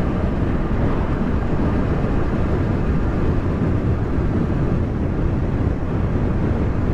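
Steady wind rush and road noise on a motorcycle rider's helmet microphone at cruising speed, with the Honda CB500F's parallel-twin engine running under it.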